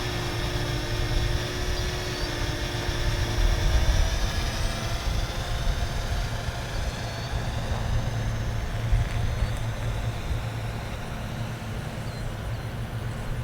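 Parrot Anafi quadcopter's propellers whining in flight: several steady tones together, the higher ones drifting lower and fainter from about halfway through as the drone moves off. Underneath is a low wind rumble on the microphone.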